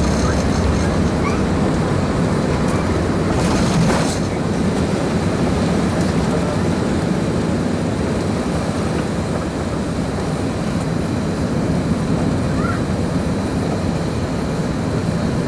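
Cabin noise of an Airbus A380-861 taking off, heard at a window over the wing: its four Engine Alliance GP7200 turbofans at takeoff thrust over a steady rumble, as the aircraft rolls down the runway and lifts off. The noise eases slightly about four seconds in.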